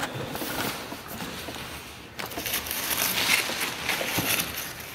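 Packaging crinkling and rustling as a pair of sneakers is taken out of its box, a dense crackle that grows louder a little after two seconds in.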